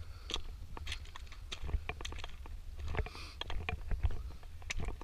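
Wind buffeting the microphone as a low rumble, with irregular small clicks and crunches throughout.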